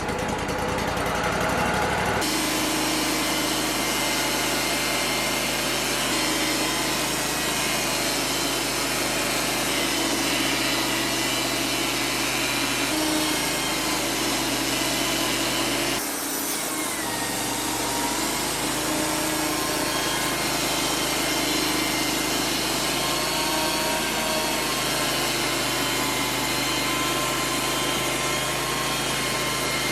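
Wood-Mizer LT35 portable bandsaw mill running steadily under power, with sudden shifts in its sound about two seconds in and again about halfway through.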